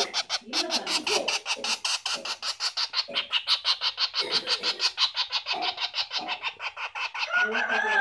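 Young woodpecker giving a rapid, even run of short, high calls, about seven a second, without pause.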